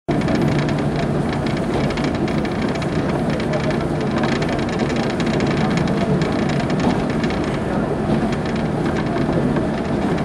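Steady running noise of a moving passenger train heard from inside the car: wheels rolling on the rails and the car body rumbling.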